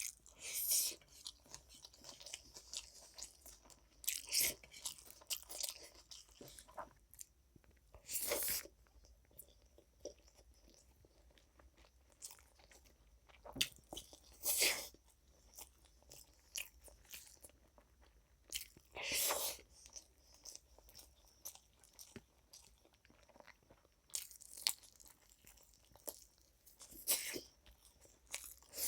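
Person chewing and biting food close to the microphone, with crunchy bites coming at irregular intervals a few seconds apart.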